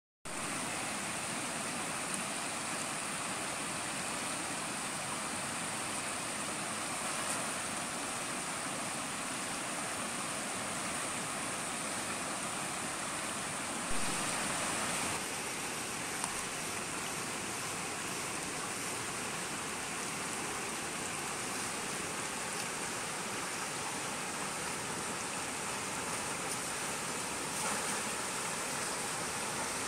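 Fast, shallow river rushing over stones in rapids: a steady rush of water, briefly a little louder about halfway through.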